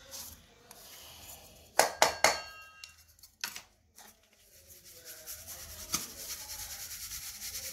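A few sharp knocks of a plastic sieve being handled near two seconds in and again a little later, then from about four and a half seconds in a steady rhythmic rustling hiss as dry ground neem-leaf powder is shaken in the plastic sieve to sift it.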